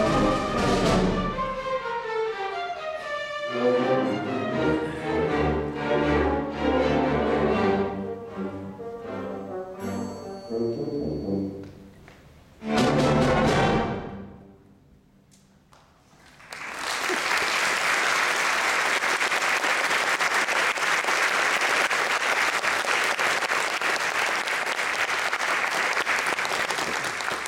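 Orchestra playing the closing bars of a piece and ending on a short, loud final chord about thirteen seconds in. After a brief hush, the audience breaks into steady applause.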